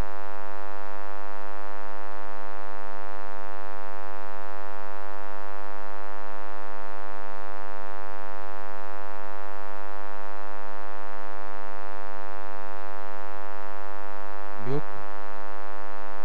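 Steady electrical mains hum and buzz on the church's sound-system feed, unchanging throughout. A voice begins near the end.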